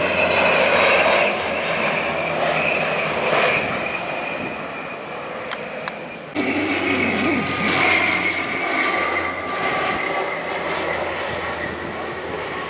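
HC-144 Ocean Sentry's twin turboprop engines during a low flying pass, a steady high whine over the propeller drone. There is an abrupt cut about six seconds in to another pass of the same aircraft.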